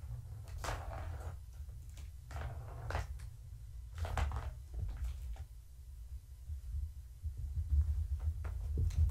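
Kittens playing with a Catit plastic trackball toy and moving about on carpet: a few scattered rustles, rattles and light clicks over a steady low hum.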